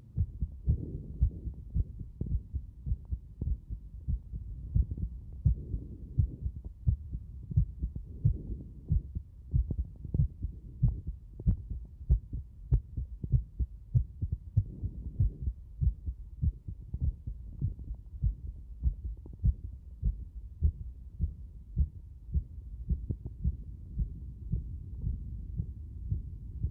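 Heartbeat picked up close up: a fast, regular series of low thumps.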